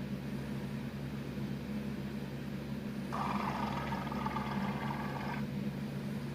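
Stomach growling, with a louder, higher gurgling rumble from about three seconds in that lasts a couple of seconds over a steady low hum.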